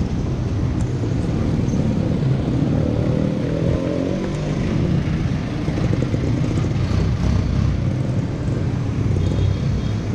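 Busy street traffic, with a jeepney's diesel engine running close by over a continuous low rumble.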